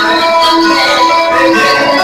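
Loud music through the PA: a woman singing held notes into a microphone over an instrumental backing track.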